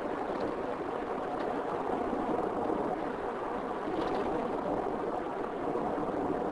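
Steady road noise of a car driving at speed: tyre and engine rumble without a break.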